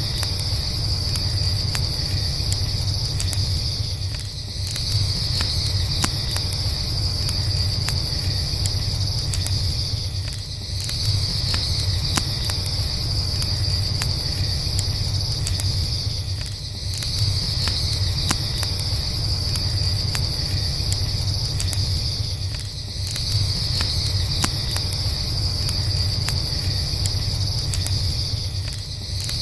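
Crickets trilling steadily, the trill dropping out briefly about every six seconds, over the scattered crackles and pops of a campfire and a steady low rumble.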